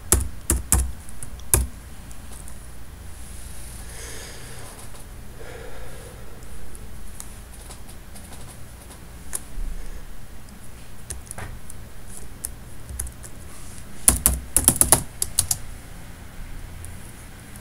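Typing on a computer keyboard in short bursts: a few keystrokes at the start, scattered single taps, then a quick run of keystrokes about fourteen seconds in.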